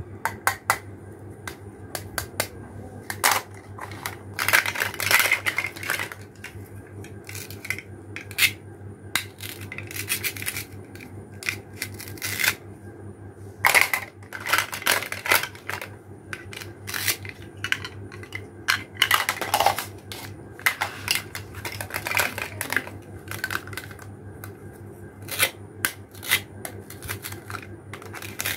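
Plastic toy fruit pieces and a plastic toy knife clicking and clacking against a plastic cutting board and each other, with a few short rasping sounds as the cut halves are pulled apart.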